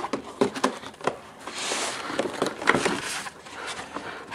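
Cardboard packaging being opened and handled: scattered knocks and taps, with a short scraping rustle about halfway through.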